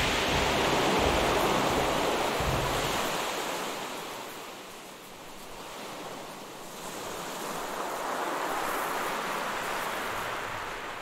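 Ocean surf: waves washing in with a rushing noise that swells, ebbs about five seconds in, swells again, and fades near the end.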